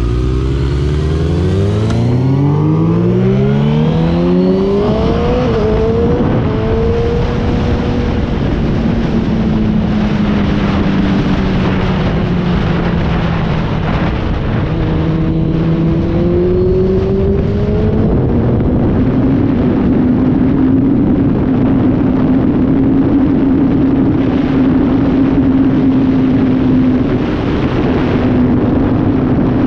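Motorcycle engine revving up hard through the first few seconds, then running at a steady cruising speed with slow rises and falls in pitch, under heavy wind rush.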